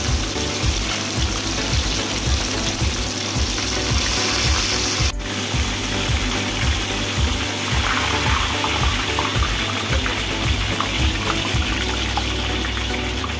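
Masala-coated fish frying in hot oil in a steel kadai, a steady sizzle that dips briefly about five seconds in, over background music with a steady beat.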